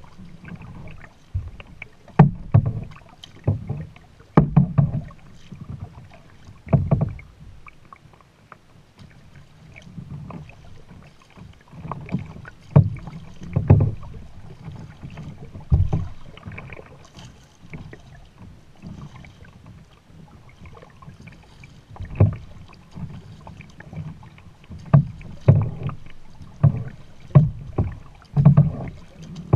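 Kayak paddling: a double-bladed paddle dipping and splashing in the water, with irregular low thumps from the plastic kayak. The strokes come in bunches, with a quieter lull in the middle.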